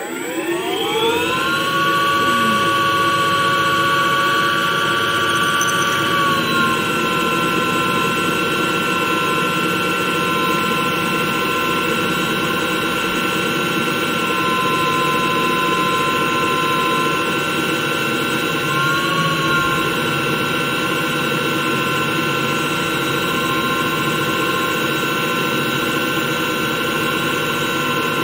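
DIY CNC lathe spindle spinning up to 1200 RPM, its whine rising over about a second, then running loud and steady while a fixed drill bit bores into the workpiece in the chuck. The pitch dips briefly twice, about 6 and 19 seconds in.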